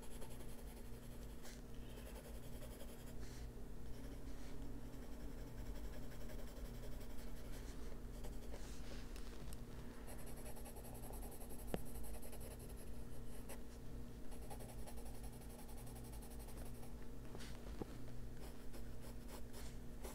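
Faber-Castell Polychromos oil-based colored pencil in dark cadmium yellow scratching softly across a coloring page in repeated shading strokes, in stretches that start and stop every few seconds, over a faint steady hum.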